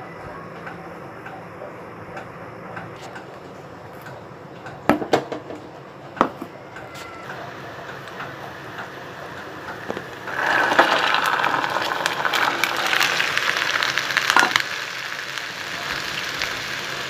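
Oil sizzling quietly around browned onions in a pan, with a few sharp knocks about five and six seconds in. About ten seconds in, cooked brown chickpeas go into the hot oil and a loud, steady sizzle takes over.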